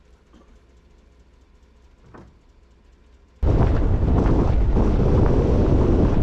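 Quiet for about three seconds, then a sudden loud, steady rumble of wind buffeting the microphone, mixed with road noise from a pickup truck driving with its window open.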